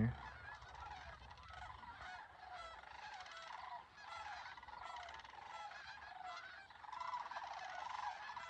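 A distant flock of Canada geese honking, many overlapping calls in a continuous chorus that grows a little louder near the end.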